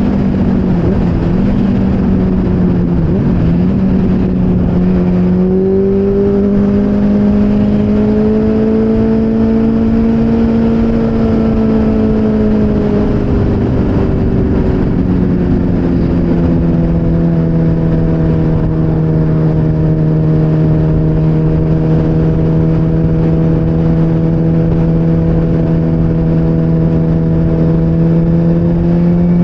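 Motorcycle engine running at cruising speed, with loud wind and road noise. The engine note dips twice in the first few seconds, rises again about five seconds in, eases slightly around the middle, then holds steady.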